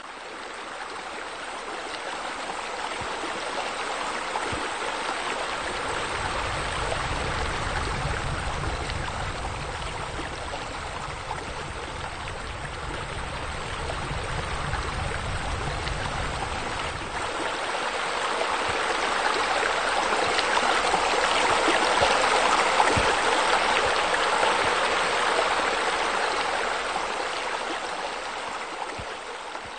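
Steady rushing, splashing water from a pool's waterfall wall, with a low rumble underneath for a stretch in the first half, growing louder past the middle and easing off near the end.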